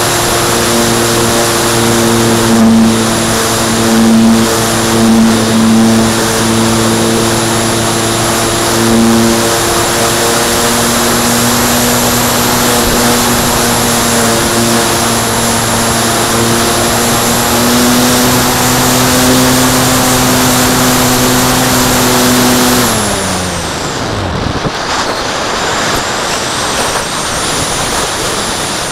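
Model glider's nose motor and propeller running steadily under power, with air rushing past the airframe. About 23 seconds in, the motor is cut and its hum winds down to a stop, leaving only wind rush as the glider flies on unpowered.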